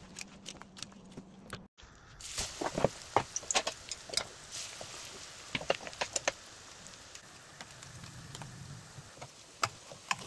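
A bamboo sushi mat clicking lightly as a roll is pressed in it, then a breadcrumb-coated sushi roll frying in shallow oil in a pan: a steady sizzle with irregular pops and crackles.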